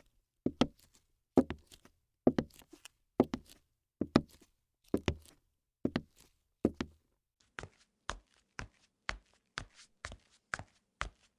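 Evenly spaced thuds, about one a second. After about seven seconds they give way to lighter, sharper taps about two a second.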